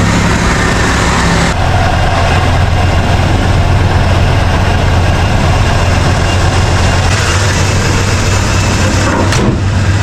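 Ford F-150 pickup engine idling steadily, just started with a freshly installed C6 automatic transmission. The tone shifts about a second and a half in, and there is a short click near the end.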